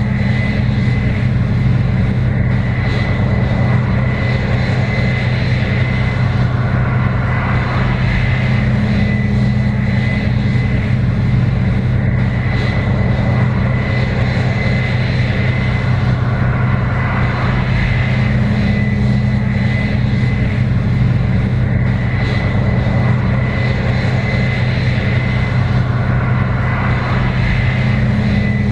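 Case IH 7120 Axial-Flow combine running steadily: a constant loud mechanical drone with a low hum and a thin high whine over it. A deeper hum swells and fades about every ten seconds.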